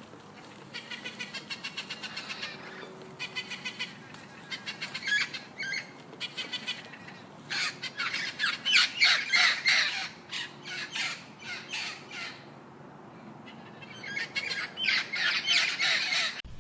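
A bird giving harsh squawking calls in rapid series, in several bouts, loudest in the middle.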